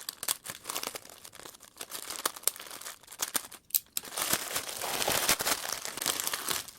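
A parcel being cut open: short sharp snips and clicks, then, from about four seconds in, a longer stretch of crinkling packaging as it is pulled open.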